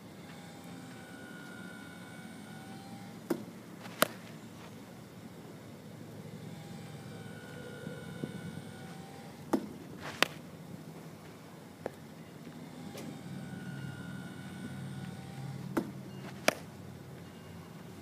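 Phoenix 1904 wood bat cracking against pitched baseballs three times, about six seconds apart, each hit the loudest sound and each preceded by a softer knock about 0.7 s earlier as the ball is delivered. Faint wavering whine tones come and go in the gaps between pitches.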